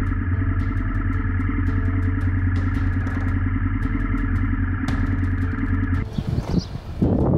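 Honda Africa Twin's parallel-twin engine running steadily at low revs, with regular faint clicks. About six seconds in it gives way to wind noise on the microphone.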